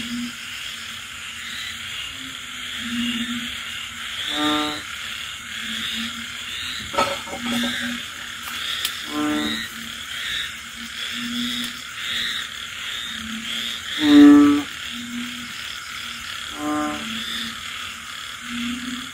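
Night frog chorus in the rain season: a loud frog gives four short, bleating calls a few seconds apart, the third the loudest, over short low croaks from other frogs and a steady high chirping of insects or small frogs. The loud calls fit the banded bullfrog (ễnh ương) that is named as the loud caller.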